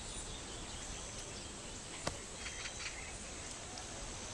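Quiet outdoor ambience: a steady background hiss with a few faint high chirps, and a single sharp click about two seconds in.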